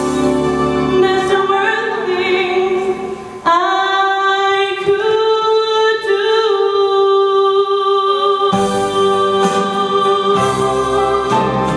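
A woman singing a slow ballad into a microphone over instrumental accompaniment. About three and a half seconds in she holds one long note for some five seconds while the bass of the accompaniment drops out, and the fuller accompaniment comes back under her singing near the end.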